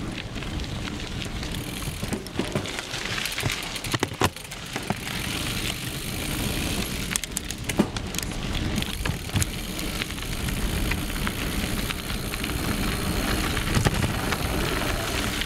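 Mountain bike rolling fast along a dirt and gravel forest singletrack: a steady rumble of tyres and motion, broken now and then by sharp knocks and rattles as the bike goes over bumps.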